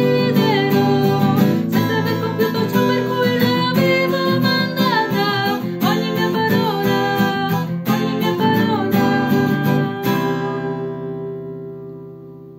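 Woman singing a Catholic hymn in Italian to a strummed acoustic guitar. About ten seconds in the singing stops and a final guitar chord rings out, fading away.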